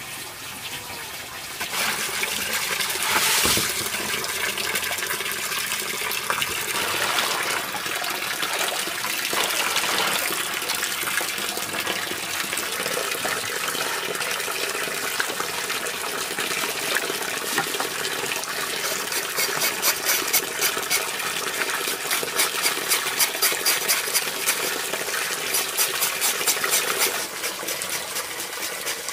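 Water running and splashing steadily. From about two-thirds of the way in, a quick regular rhythm of short strokes, about four a second, sits on top of the water for several seconds and then stops.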